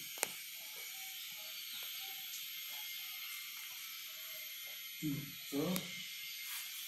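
Chalk on a blackboard as words are written: a sharp tap near the start, then light scratching, over a steady hiss. Two short low sounds come about five seconds in.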